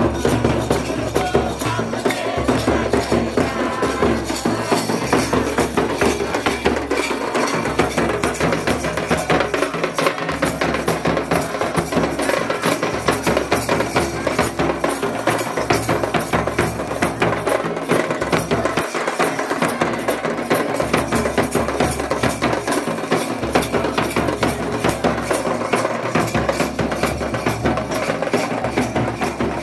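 Traditional folk drumming: a large kettle drum beaten with sticks, together with other hand drums and jingling percussion, keeps up a fast, steady beat.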